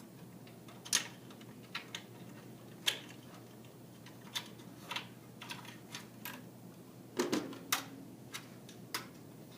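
About a dozen irregular sharp clicks and light taps, loudest in a quick cluster about seven seconds in. They are plastic clips and cable connectors inside a desktop PC being unlatched and handled.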